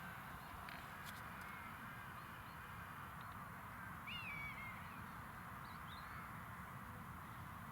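A bird gives a short call about four seconds in, falling slightly in pitch, and a fainter second call follows near six seconds, over a steady faint outdoor background.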